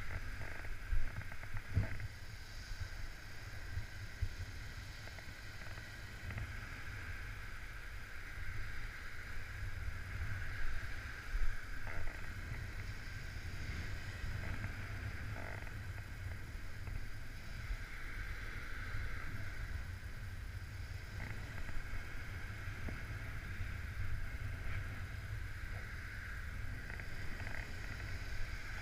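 Gusty wind buffeting the camera's microphone in a steady rumble, with a few brief knocks and louder gusts near the start and about ten seconds in.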